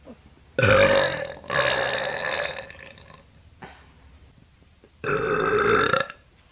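A young woman burping loudly: two long burps back to back starting about half a second in, then a third about five seconds in.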